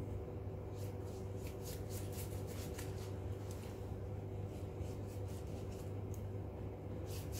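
Silicone pastry brush dabbing and stroking egg wash onto braided challah dough, a run of short, soft scratchy brushing sounds at an irregular pace. A steady low hum runs underneath.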